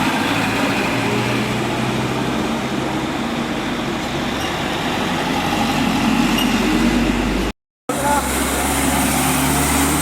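Steady motor-vehicle engine noise with voices mixed in, broken by a sudden short dropout to silence about three quarters of the way through.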